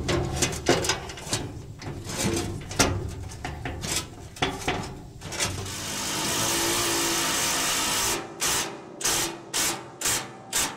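Metal on a hay mower being scrubbed by hand in quick, uneven scraping strokes, cleaning it for welding. About six seconds in, a small power tool runs steadily for about two seconds, then the scrubbing resumes as even strokes about twice a second.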